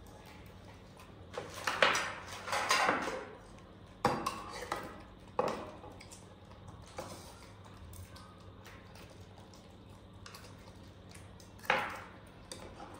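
Dishes and a spoon clinking and clattering, the sounds of rice being eaten from a bowl. There is a cluster of clatters in the first few seconds, then single knocks, the last one near the end.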